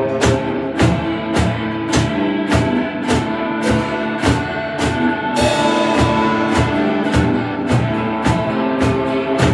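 Instrumental rock band playing live: two electric guitars over a drum kit, in a Middle Eastern–Turkish folk style. The drums keep a steady beat of roughly two hits a second, and a cymbal wash comes in about halfway through.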